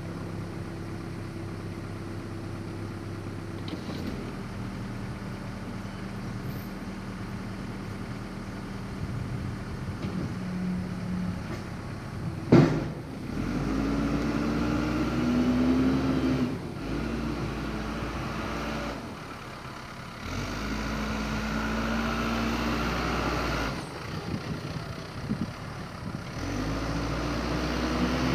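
Backhoe engine running steadily, then working harder in spells of a few seconds as it drives the hydraulic log splitter. One sharp bang about twelve seconds in is the loudest sound.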